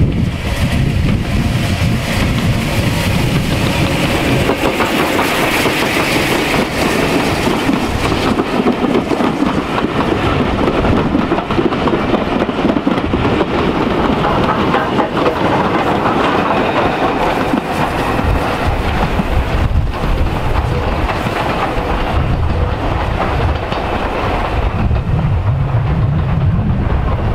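Steam-hauled passenger train passing close by: the locomotive and a rake of coaches rumble and clatter over the rail joints in one steady run of noise.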